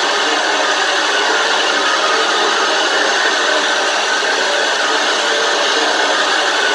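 Loud, unbroken wall of harsh amplified noise from a speaker, a dense hiss-and-grind with faint held tones threaded through it, typical of a live noise-music set.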